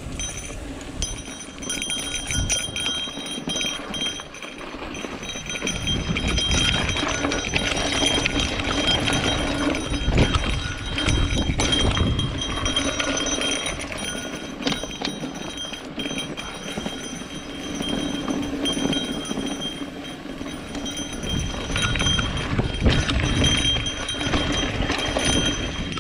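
Mountain bike rolling fast down a rocky dirt trail: tyres on dirt and rock over a steady rush of noise, with frequent knocks and rattles from the bike as it hits rocks and bumps.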